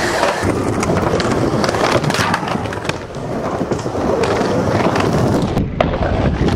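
Skateboard wheels rolling and carving around a bowl, with clacks of the board and trucks and a grind on the coping near the end.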